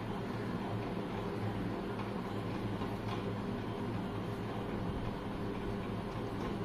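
A steady low mechanical hum made of several level tones, unchanging throughout.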